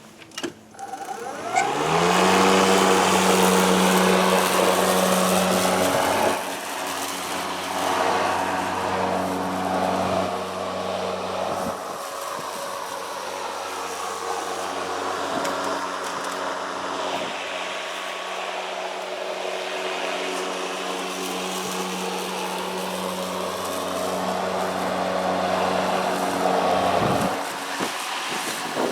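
Kobalt 80V cordless electric lawnmower starting: a click, then the motor and blade spin up with a short rising whine about a second and a half in. It runs at a steady hum with a whooshing blade noise and winds down near the end.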